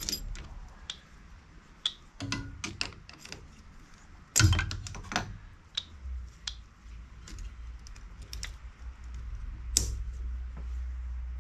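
Small clicks and knocks of a tool and metal parts being handled on a vintage generator engine, with a louder clack about four and a half seconds in and another near ten seconds, over a low steady hum.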